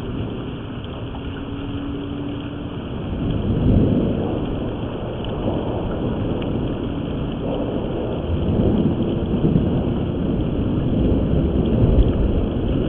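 Thunderstorm: steady rain with low rolling rumbles of thunder, which swell about three and a half seconds in, again around eight to nine seconds, and near the end. It is heard through a surveillance camera's microphone, which cuts off the highs and makes it sound muffled.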